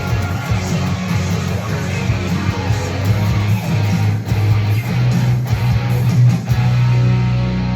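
Music led by guitar, with strummed guitar and a bass line.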